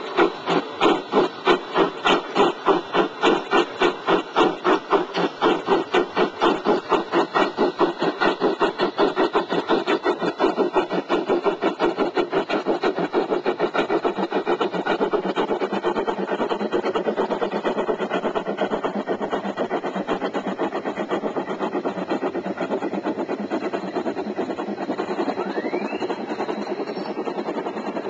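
Bachmann large-scale Shay model locomotive chuffing as it runs. The beat starts at about three chuffs a second and quickens until the chuffs blur together as the train picks up speed.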